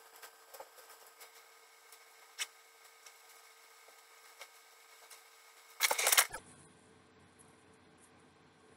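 Faint rustling and small clicks of clothing being put on and adjusted, with one brief, louder rustle about six seconds in.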